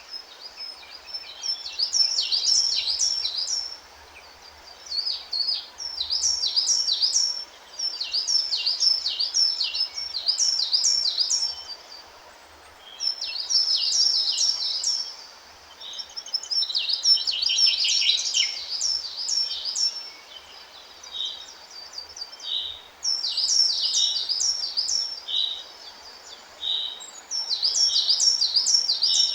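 A songbird singing: a short, fast phrase of rapid high notes, about two seconds long, repeated every few seconds, over a faint steady hiss.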